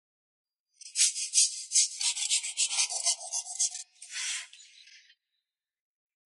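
Framed hand saw cutting through a bamboo tube with quick back-and-forth strokes, about three a second, then a short pause and one last longer stroke before it stops.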